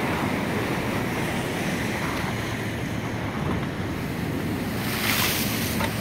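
Rough Atlantic surf washing and breaking below a seawall: a steady rush of waves, with wind buffeting the microphone. There is a brief louder hiss about five seconds in.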